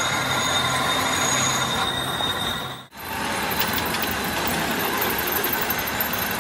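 Metalworking machinery running steadily, with a high thin metallic whine over the noise. About three seconds in it drops out for an instant, then carries on rougher, with a few light metal clicks.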